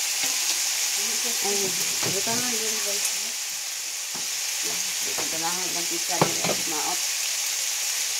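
Diced pork and mushrooms frying in oil in a cast iron skillet, with a steady sizzle and some wooden-spatula stirring. There is one sharp knock about six seconds in.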